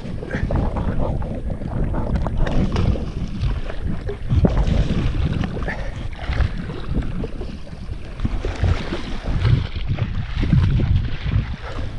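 Strong gusty wind buffeting the microphone, a low rumble that rises and falls with each gust.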